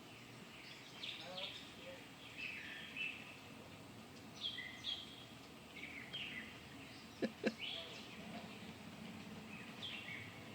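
Birds chirping and calling now and then in short, high notes over faint outdoor background noise, with two quick clicks a quarter-second apart about seven seconds in.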